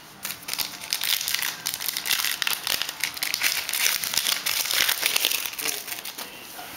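Plastic wrapper of a hockey card pack crinkling and tearing as it is handled and opened, an irregular stream of crackles that eases off near the end.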